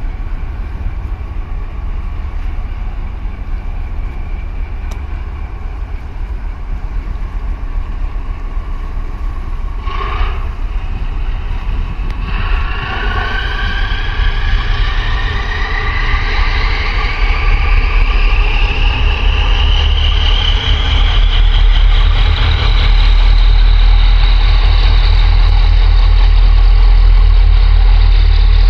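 Harbour tug's diesel engines working up to push against a container ship's hull. A deep engine rumble grows louder throughout, and a little under halfway in a whine starts that rises steadily in pitch as the engines spool up.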